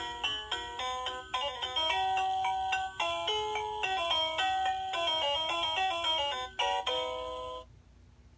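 Baby Einstein Driving Tunes toy steering wheel playing one of its short classical melodies as a quick run of electronic beeping notes from its small built-in speaker. The tune stops abruptly near the end.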